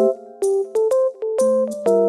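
Background music: a light keyboard melody of short piano-like notes in an even rhythm.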